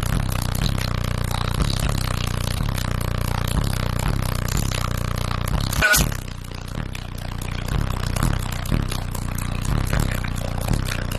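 Car audio system playing bass-heavy music loudly, with a steady beat and a heavy low bass line. The bass drops out briefly about six seconds in, then comes back.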